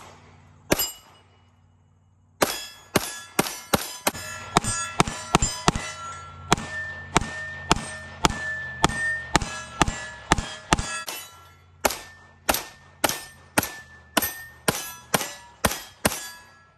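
SAR USA P8L 9mm pistol firing a long, quick string of shots, about two to three a second after a single opening shot. Steel targets clang and ring after the hits.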